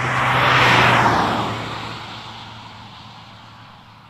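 A vehicle passing close by: its noise swells to a peak about a second in, then fades away over the next few seconds.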